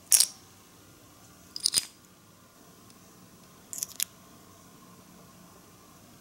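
Tiny plastic miniature pieces clicking as they are handled and snapped or set in place: a sharp click at the start, a double click near two seconds, and another pair near four seconds.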